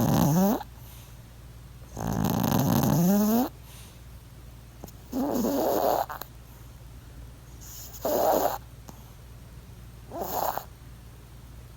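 A sleeping dog snoring, one snore every two to three seconds, the later snores shorter and a little quieter.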